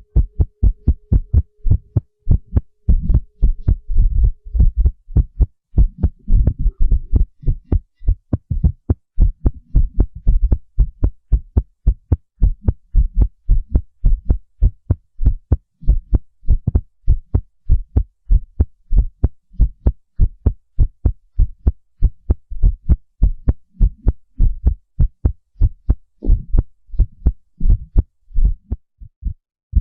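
Recorded human heartbeat: a fast, even run of short thuds, about three a second, with a low rumble between some of the beats.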